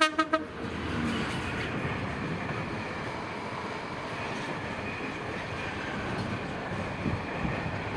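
Class 66 diesel locomotive giving three quick horn pips as it passes. The steady rumble and clatter of its container wagons rolling by follows.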